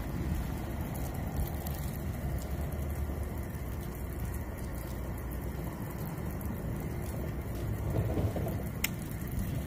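Steady low rumbling outdoor background noise with no distinct source, and a single sharp click near the end.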